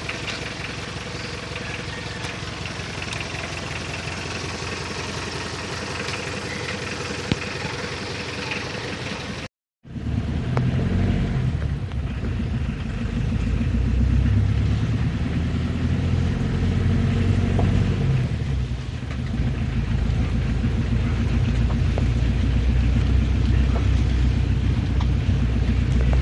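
Steady outdoor street noise with a motor running, cut off suddenly about ten seconds in. After the cut comes the loud, low rumble of a vehicle's engine and road noise, heard from inside the moving vehicle.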